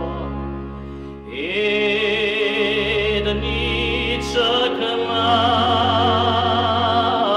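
Bulgarian folk singing. Long, ornamented, wavering held notes sound over a steady drone. The melody enters with an upward slide about a second in, and another line joins about five seconds in.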